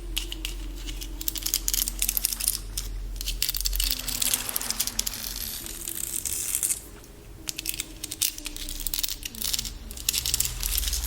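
Close-up crinkling and crackling from objects being handled and rummaged, a dense run of small sharp clicks, over a faint low hum that shifts in pitch.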